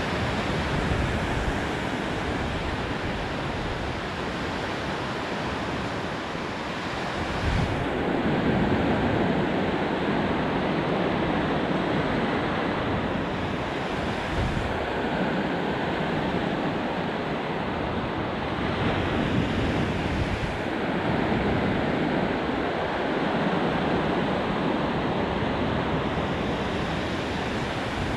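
Ocean surf washing onto a beach, a steady rush of breaking waves that swells louder a few times, with wind buffeting the microphone.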